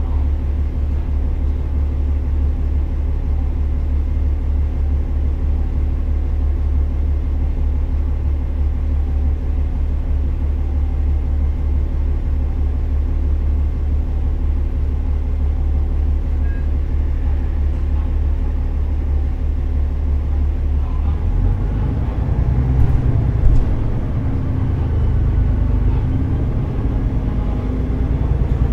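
KiHa 47 diesel railcar running, heard from inside the car: a steady low engine drone with wheels on rail. About two-thirds of the way through, the sound turns into a rougher, louder rumble, with one sharp knock a couple of seconds later.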